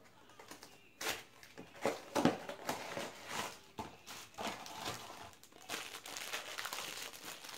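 Crinkling of a Funko Mystery Minis blind box's foil pouch as it is pulled from its cardboard box and torn open by hand, in irregular rustling bursts starting about a second in.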